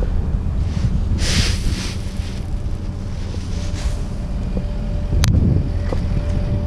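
Caterpillar 307E2 compact excavator's diesel engine idling steadily, with wind buffeting the microphone. There is a brief rush of noise about a second in and a single sharp click a little after five seconds.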